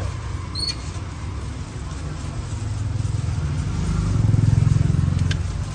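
Low engine rumble of a passing motor vehicle, swelling to its loudest about four to five seconds in and easing near the end, with a couple of light clicks.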